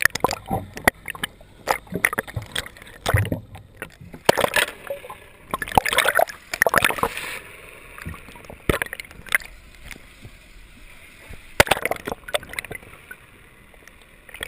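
Sea water splashing and sloshing in irregular short bursts.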